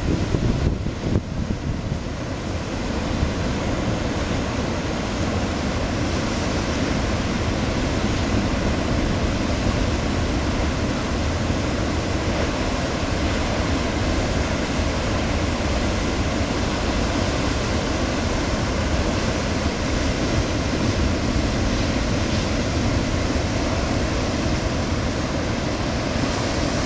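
Steady rush of ocean surf breaking over a rocky shore, with wind buffeting the microphone.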